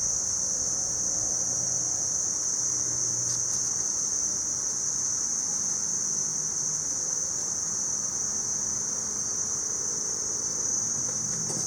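Steady, high-pitched insect chorus droning without a break, with a faint low hum underneath.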